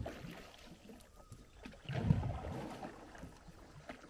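Wooden canoe being paddled by hand on calm water: the paddle dips and pulls through the water about every two seconds, the biggest stroke about two seconds in.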